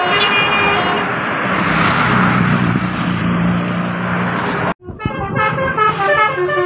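Basuri telolet bus horn, a multi-tone air-horn set, playing a stepping melody. Between the melodies comes a loud rush of noise over a low engine hum as the bus goes by. The noise cuts off abruptly and the horn melody starts again.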